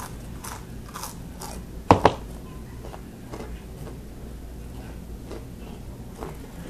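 Close-up chewing of crunchy spicy cheese snacks: a run of crisp crunches, with two sharp loud cracks about two seconds in, then quieter chewing.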